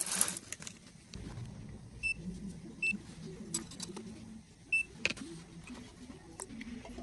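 Three short, identical electronic beeps, about a second or two apart, among light clicks and knocks of things being handled.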